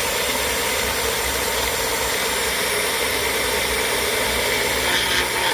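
An electric appliance motor running steadily at one pitch, switched off abruptly at the very end.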